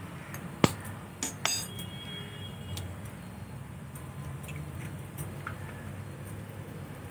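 An egg knocked sharply against the rim of a glass bowl and cracked open: one hard knock, then two lighter taps that set the glass ringing briefly, and a last small click.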